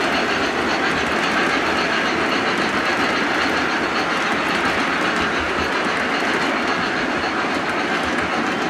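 Model train of MTH military flat cars rolling along layout track: a steady rumble and clatter of wheels on rail.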